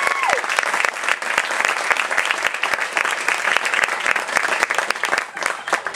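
Audience applause: many people clapping steadily, with a brief high call from the crowd at the start that falls off in pitch.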